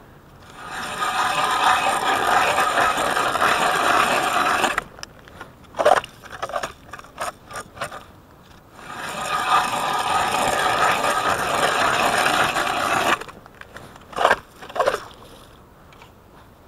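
Zhytomyr-made hand ice auger boring through lake ice: two bouts of steady grinding scrape as the blades cut, each about four seconds long. Each bout is followed by several short knocks.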